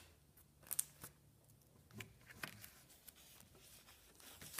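Mostly near silence, with a few faint, brief rustles and taps from a cross-stitch pattern leaflet in a clear plastic sleeve being handled.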